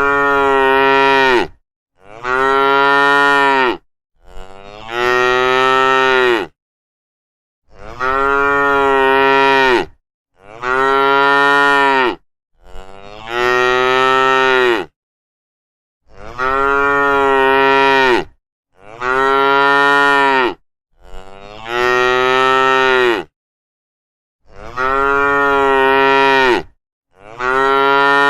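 Cows mooing: a run of long calls, each about two seconds, rising at the start and then held, one after another with short pauses between.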